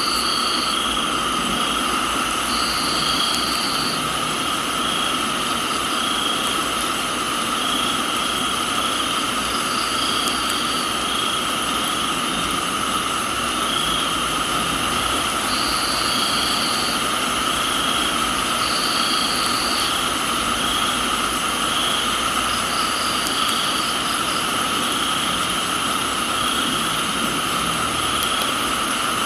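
Crickets and other night insects trilling steadily in several layers: one pulses about once a second, and another gives second-long higher trills every few seconds. Underneath is an even hiss of rain.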